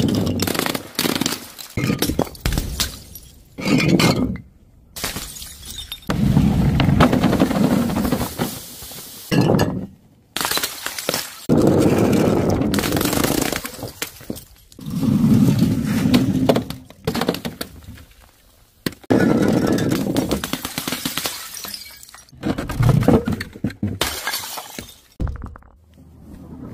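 A run of about ten separate smashes and crashes, each starting suddenly and trailing off in scattering debris and splatter: glass bottles and jars shattering, and soft, filled things bursting on hard paving.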